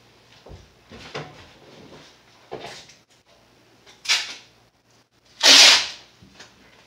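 Masking tape pulled off the roll in two quick pulls, the second about half a second long and the loudest, after a few soft knocks and rustles of handling.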